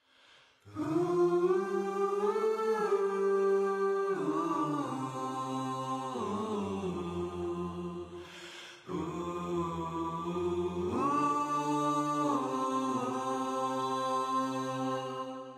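Wordless singing: a voice holding long notes that slide between pitches, with a short break about nine seconds in and a fade near the end.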